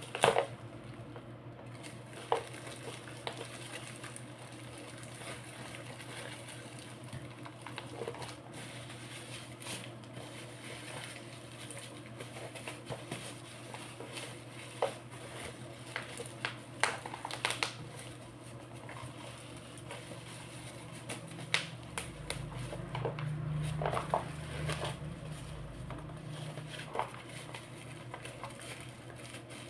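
Scattered clicks and light knocks of a plastic bicycle handlebar holder and its packaging being handled, over a steady low hum. A deeper hum swells for a few seconds about three quarters of the way through.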